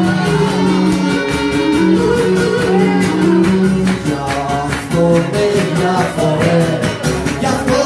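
Cretan folk music played live on a bowed Cretan lyra and a strummed laouto, with a man's singing voice joining in over the steady plucked rhythm. Long held notes in the first half give way to shorter, moving phrases about halfway through.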